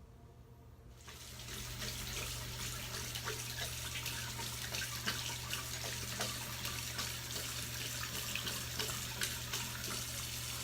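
Water tap running, turned on about a second in, with a dog lapping from the running stream in quick, irregular splashes.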